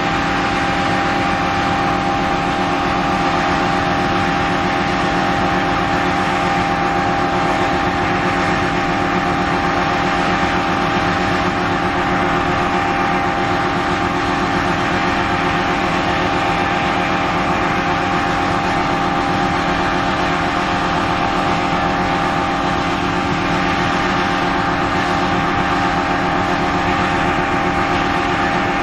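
Combine harvester running steadily while harvesting wheat: a constant loud machine drone with several steady humming tones.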